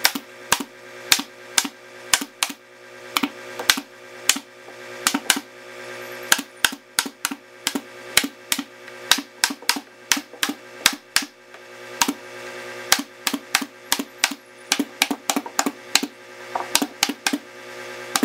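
Pneumatic staple gun firing over and over inside a wooden subwoofer cabinet, sharp snaps about two to three a second at an uneven pace, as damping felt is stapled to the inner walls. A steady hum runs underneath.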